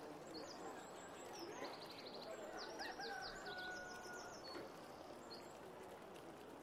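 Small birds chirping in quick high trills several times, over a faint steady background noise.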